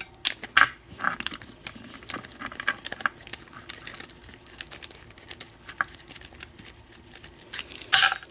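Small metal clicks and rattles as an American 1305 padlock is taken apart with its key and its retaining nut is worked loose. The clicks are sharper about half a second in and near the end.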